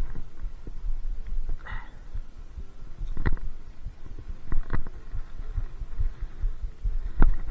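Low rumbling and soft thumps from a body-worn action camera's microphone being jostled, with sharp knocks about three seconds in, near five seconds and near the end.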